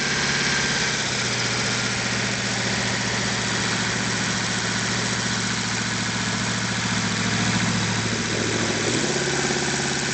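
Jet boat's engine idling steadily, with a brief change in its note about nine seconds in.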